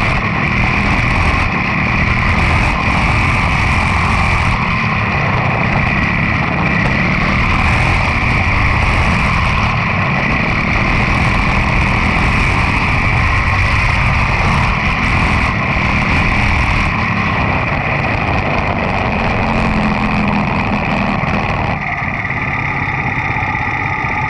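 Quarter midget race car's Briggs & Stratton Animal single-cylinder engine running under power, recorded from onboard the car. Near the end the sound drops a little and steadies as the car slows.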